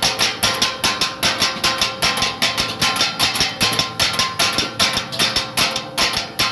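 Two steel blades clanging rhythmically on a flat iron griddle as kothu parotta is chopped, about four or five sharp metallic strikes a second with a short ring after each.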